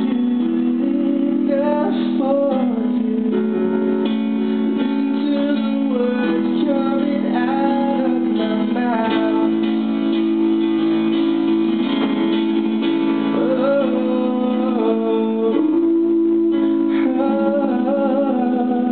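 A young man singing live while accompanying himself on an electronic keyboard, his voice over sustained chords.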